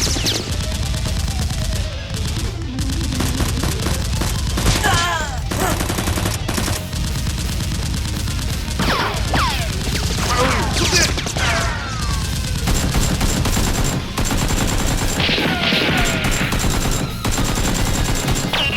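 Rapid automatic gunfire sound effects, shots in quick unbroken succession, with a few falling whistling tones mixed in.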